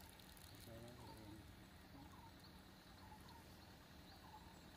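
Near silence: faint outdoor ambience with faint, short chirping bird calls repeating every half second or so.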